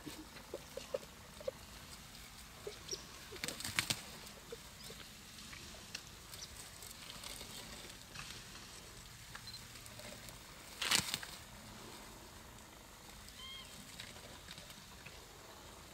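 African elephant pulling at reeds and grass with its trunk: faint rustling with a few short, sharp bursts of tearing vegetation, a cluster about four seconds in and the loudest about eleven seconds in. Faint bird chirps.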